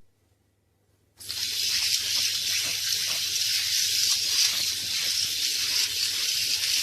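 After about a second of silence, a steady rushing hiss starts and runs on evenly.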